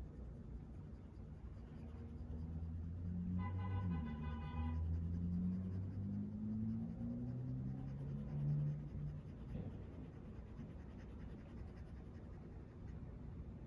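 Makeup being rubbed onto a mannequin's face, a scratchy writing-like sound, over low, slowly shifting tones. A brief high tone about three and a half seconds in lasts just over a second.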